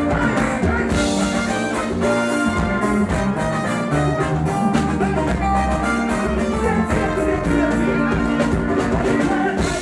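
Live band playing upbeat Ghanaian gospel music, with horns over a steady beat.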